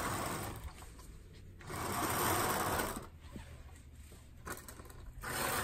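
RV privacy curtains slid along their overhead track, the curtain carriers rattling as they run. It comes in three pulls, the loudest about two seconds in and the last near the end.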